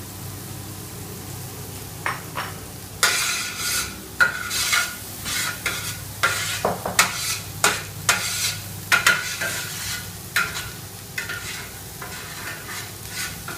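Onions, red pepper and beans frying in a wide paella pan, stirred with repeated quick strokes across the pan that start about two seconds in and sizzle with each stroke.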